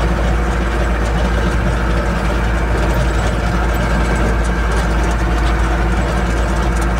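Engine and road noise inside the cab of a Ford F-4000 truck driving along a dirt road: a steady, loud drone with a few faint rattles partway through.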